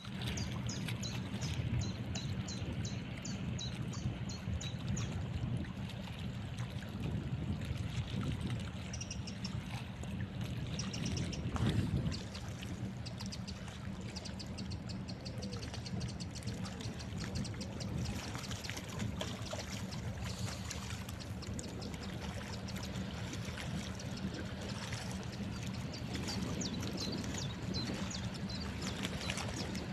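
Water splashing and sloshing over a steady low engine drone, as from a ship under way.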